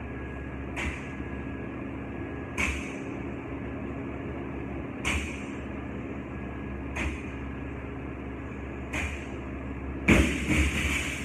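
Loaded barbell with bumper plates knocking on the rubber gym floor once per rep, five times at about two-second intervals. About ten seconds in, the bar is dropped from hip height and lands heavily, bouncing two or three times.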